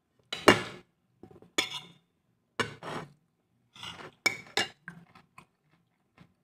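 Dishes clattering and clinking during a meal: a string of short clatters, the loudest about half a second in.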